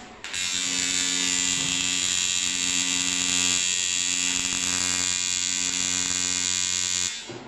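Electric welding arc buzzing steadily as bike chain stays are welded, starting just after the start and cutting off abruptly near the end when the arc is stopped.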